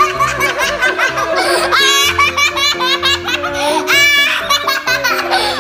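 A young boy laughing hard in several peals, with a man laughing near the start, over background music.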